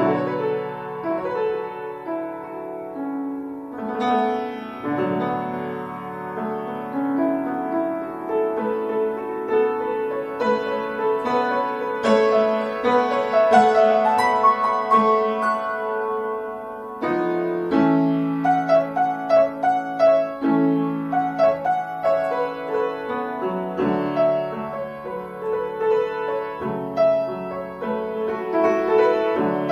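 Upright piano played solo: held chords under a moving melody, with quicker runs of notes in places.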